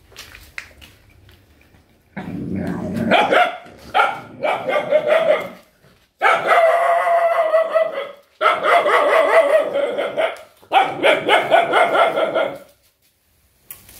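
Mother dog snarling and growling, bared-teeth warning while guarding her nursing puppies: about five long, loud bouts starting about two seconds in, with short breaks between.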